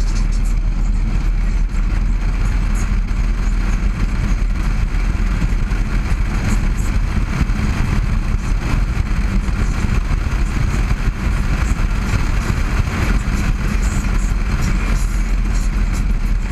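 Harley-Davidson Road Glide's V-twin engine running steadily while the bike is ridden along the road, mixed with wind noise on the microphone.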